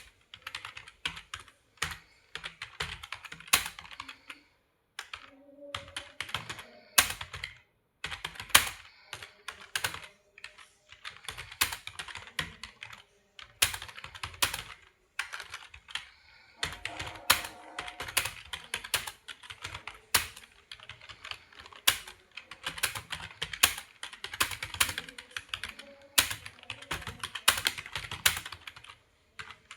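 Computer keyboard typed on quickly and steadily during a typing speed test, a rapid run of key clicks with a few louder strokes and brief pauses about four and eight seconds in.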